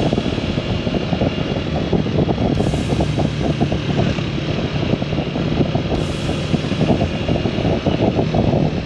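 Motorcycle on the move: a steady engine note under dense, fluttering road and riding noise.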